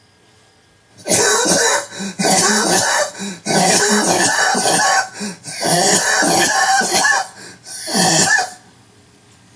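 A man's prolonged dry coughing fit: terrible-sounding hacking coughs in rapid runs, about six bouts from about a second in until near the end. The cough brings nothing up and comes with loss of voice; its cause is unknown.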